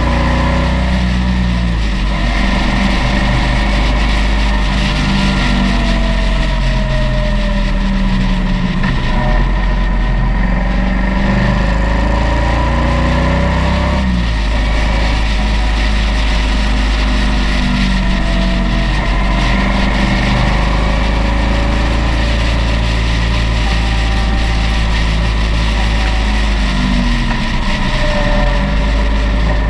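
Motorcycle engine running at road speed, its pitch rising and falling with the throttle through the bends, over a steady rush of wind.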